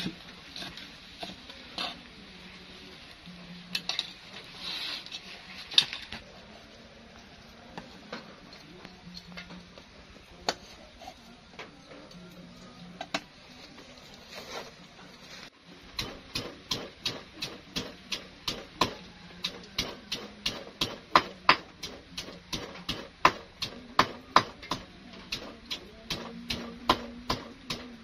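A cleaver knocks on a wooden chopping board a few times, followed by a stretch of sparse light clicks. About halfway through, a pestle starts pounding steadily in a stone mortar, about three sharp strikes a second, crushing chopped aromatics.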